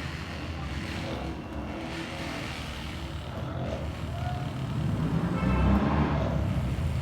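Low, steady rumbling noise that swells to its loudest about five and a half seconds in, then eases slightly.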